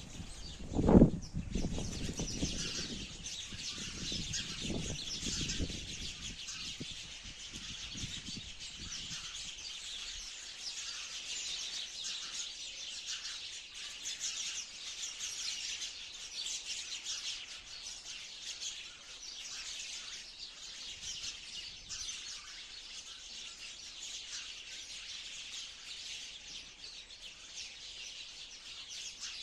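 Sparrows chirping continuously, many short overlapping chirps at once. A loud low thump about a second in is followed by a few seconds of low rumbling.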